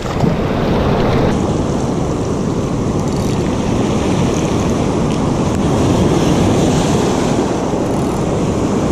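Ocean surf breaking and washing up the shore, a steady rushing noise, with wind buffeting the microphone.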